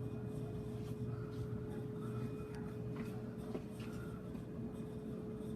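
Ceiling fans running, with a steady electric motor hum over a low rush of air.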